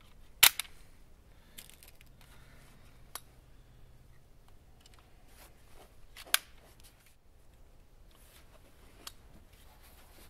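Metallic clicks of a Crosman Legacy 1000 multi-pump air rifle being handled and reloaded between shots, its bolt worked and a pellet loaded. There is a sharp click about half a second in and another a little after six seconds, with a few softer clicks and rustling between.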